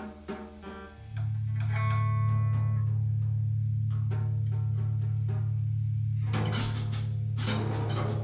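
Free-improvised noise-rock music from a trio of drums, guitar and bass. Sparse, regular drum taps give way, about a second in, to a loud held low bass note with scattered guitar notes above it. Crashing drums and cymbals come in about six seconds in.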